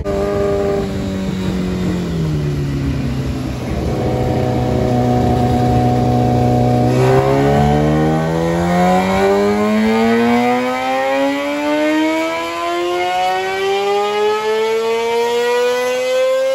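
Race motorcycle engine running at low revs, then revving in one long, smooth climb in pitch over about nine seconds toward high rpm, cutting off abruptly at the end.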